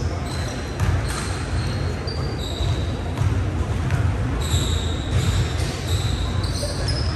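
Basketball sneakers squeaking on a hardwood gym floor in short high squeaks, several every second or so, while a basketball is dribbled.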